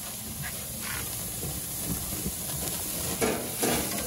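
Thick steaks searing on a hot gas grill: a steady sizzling hiss, with two short louder surges near the end.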